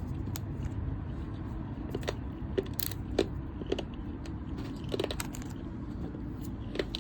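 Trading cards from a freshly opened wax pack being handled: scattered light clicks and taps of card stock, over a steady low hum.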